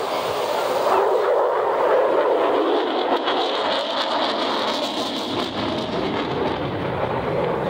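Jet noise from an F-35 Lightning II flying past, its single F135 afterburning turbofan giving a steady rushing sound that grows louder about a second in.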